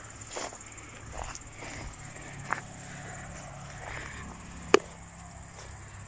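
Crickets chirping steadily, with a few sharp clicks over them; the loudest click comes nearly five seconds in.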